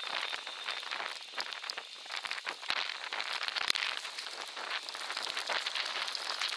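Rain falling: a dense, steady crackle of many small drop hits, a little louder about three seconds in.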